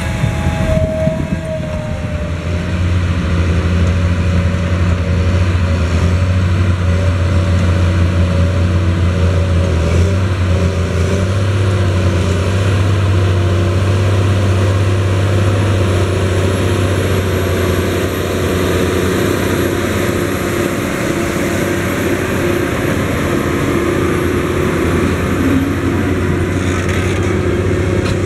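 Large diesel farm tractors (Fendt Vario and a Challenger MT 765 tracked tractor) running steadily under load as they pull earth scrapers and a levelling box through loose soil: a deep, even engine drone. A faint high whine joins about halfway through.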